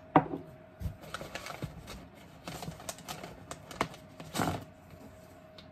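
Hands rummaging in a cardboard box of packed parts: irregular rustling and crinkling with small clicks and clatters, a sharp click near the start, over a faint steady hum.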